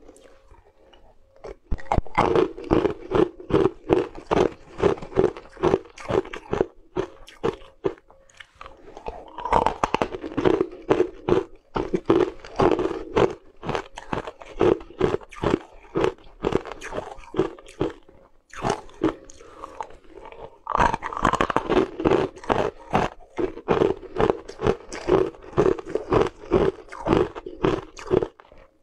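Teeth biting and crunching through chunks of frozen purple ice, a rapid run of crisp crunches several times a second, with short lulls at the start, about a third of the way in and two-thirds of the way in.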